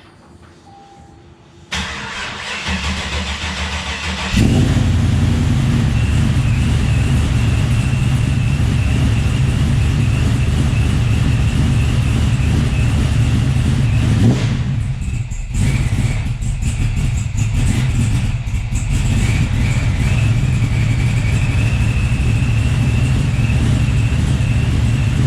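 Supercharged, cammed LS-family V8 in a street truck starting up about two seconds in and settling, a couple of seconds later, into a loud steady idle with a thin steady high whine above the rumble.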